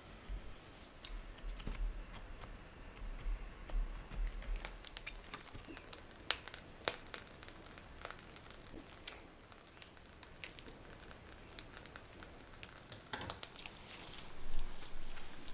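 A clear plastic sheet crinkling and crackling as gloved hands press it down and handle it, with scattered small clicks throughout. There is a louder bout of crinkling near the end.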